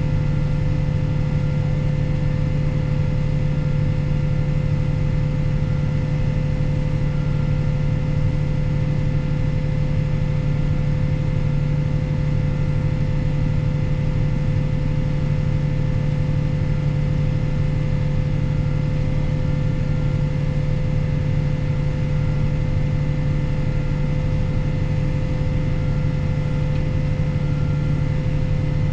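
Fendt 716 Vario tractor's six-cylinder diesel engine running steadily at constant speed: an even deep hum with a faint high whine over it.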